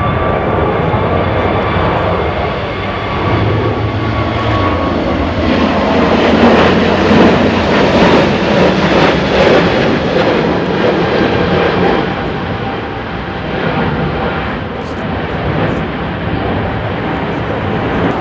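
Jet airliner flying past, its engine noise swelling to a loud peak about halfway through and then fading, over a steady low rumble of wind.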